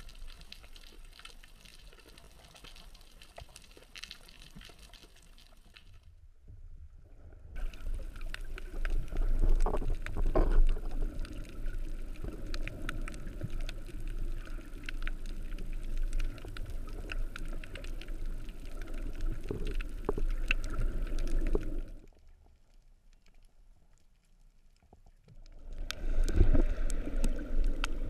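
Underwater sound heard through a GoPro's waterproof housing: water rushing and surging past with scattered small clicks and crackles, louder in the middle and again near the end. The sound drops out briefly twice.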